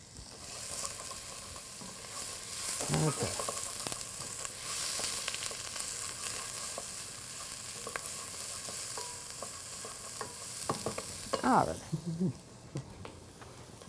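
Diced white onion and minced garlic sizzling in olive oil in a pan as they brown, stirred with a wooden spoon. Two short squeaky sounds, about three seconds in and near the end; the sizzling drops away a couple of seconds before the end.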